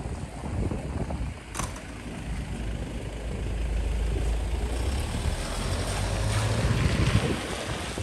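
A motor vehicle passing on a city street: engine rumble and tyre hiss build for several seconds and fall away near the end, with wind on the microphone. A single sharp click about one and a half seconds in.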